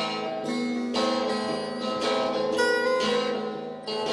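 Instrumental music between sung lines: plucked strings playing a string of separate notes, each one struck and then fading.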